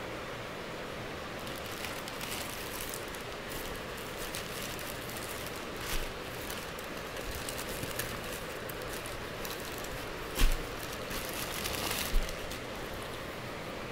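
Plastic courier mailer bag crinkling and rustling as it is handled, with a few dull thumps, the loudest about ten and a half seconds in and another near twelve seconds, over a steady hiss.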